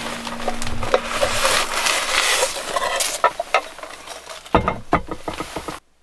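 Hands rummaging in a fabric storage bag: a dense rustling of the bag's cloth, followed by a run of sharp clicks and knocks as things inside are handled, cutting off abruptly near the end.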